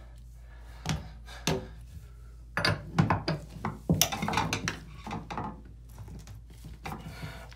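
Steel open-end wrench clinking and knocking against a drain removal tool seated in a bathtub drain as it is fitted and turned to loosen a rust-stuck drain: a couple of sharp knocks, then a run of clinks and scrapes in the middle.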